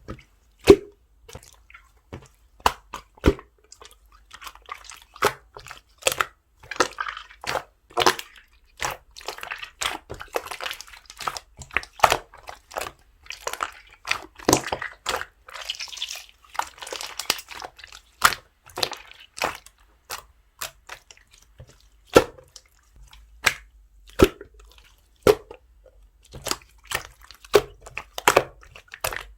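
Slime being squished and poked by hand, giving a string of irregular sticky clicks and pops with crackly squelching between them.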